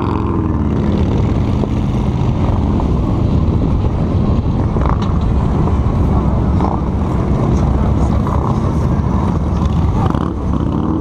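Cruiser motorcycle engine running at road speed under heavy wind noise on a helmet-mounted microphone, its pitch shifting briefly near the start.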